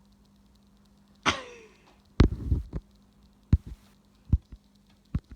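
A brief falling cry, then a heavy thump about two seconds in, followed by several lighter knocks and taps, over a steady low hum.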